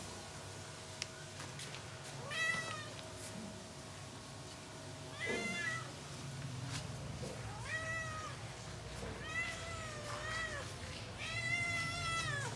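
Leopard cat meowing: about five high, drawn-out calls a couple of seconds apart, the later ones longer. Lonely calls from a cat left without its companions.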